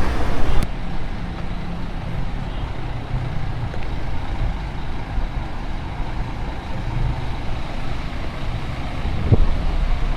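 Low, steady rumble of a motor vehicle, with a single sharp click about nine seconds in.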